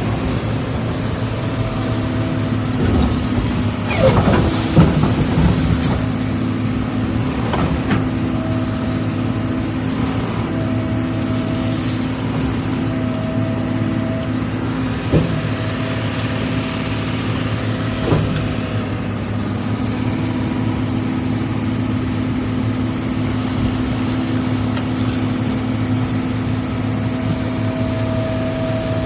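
Excavator's diesel engine running steadily, with a few sharp clanks: a cluster about four seconds in and single ones later on.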